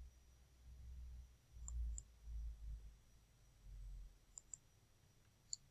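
Faint computer mouse clicks: two quick pairs and one single click near the end, over a low rumble.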